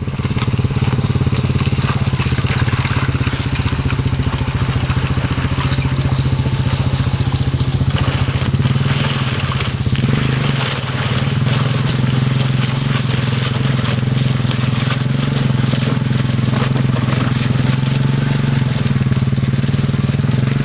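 ATV engine running steadily at low speed as the quad wades through shallow muddy water, with water sloshing around it.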